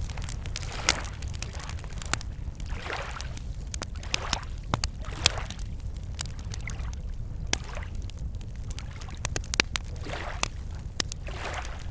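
Wood campfire crackling with frequent sharp pops, over small lake waves lapping against the shore in soft washes every second or two.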